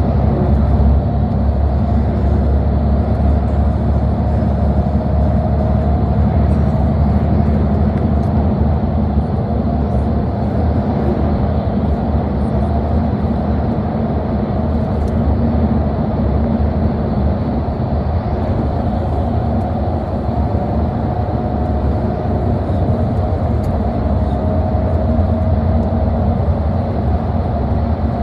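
Steady low engine and road rumble of a bus heard from inside the cabin while riding, with faint steady whining tones above it.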